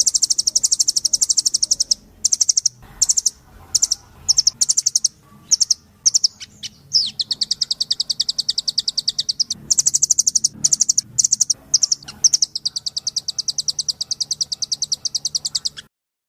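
Velvet-fronted nuthatch calling: long bouts of very fast, high, rattling trills, broken in the middle by shorter separate chips and brief trill fragments.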